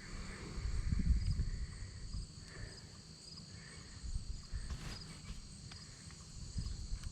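Insects chirping: a steady high buzz with small regular chirps about twice a second. Underneath is uneven low rumbling noise, loudest about a second in.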